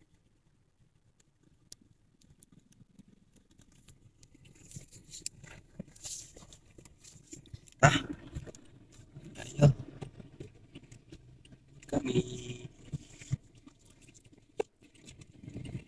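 Rustling and handling noise inside a car cabin, starting a few seconds in, with several sharp thumps, the loudest two about eight and ten seconds in, as the driver climbs into his seat.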